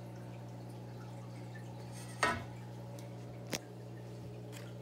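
Two brief knocks from handling the aquarium's glass lid over its cardboard box: a louder clatter about two seconds in and a sharp click about a second later, over a steady low electrical hum.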